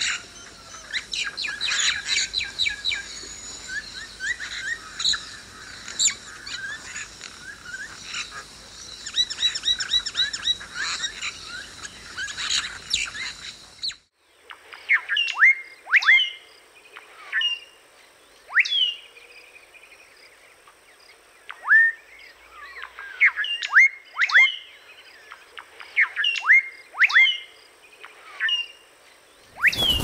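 Birds chirping and calling in a dense chorus with high steady tones. About halfway through it changes abruptly to sparser, sharp chirps that slide quickly downward.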